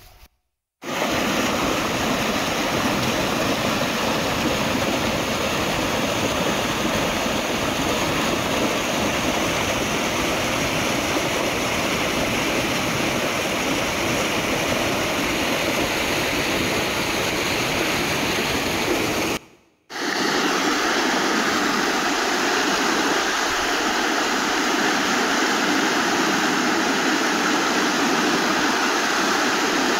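Swollen creek rushing over rocks in foaming rapids: a loud, steady rush of water. It is broken twice by a brief silence, about a second in and about two-thirds of the way through, and after the second break there is less low rumble.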